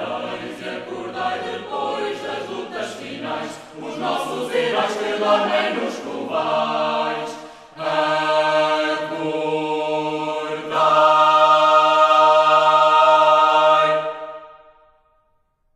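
Choir singing as background music, ending on a long held chord that fades out near the end.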